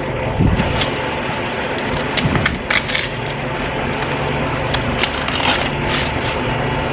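Plastic packaging of an iPad replacement screen being handled, with irregular crinkles and clicks over a steady background hum.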